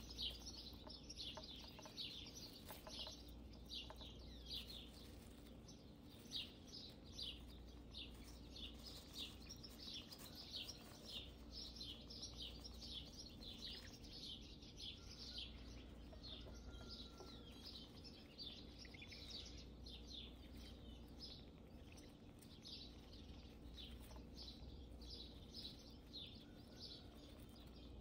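Small birds chirping: quick runs of short, high, falling chirps, several a second, over a faint low steady hum.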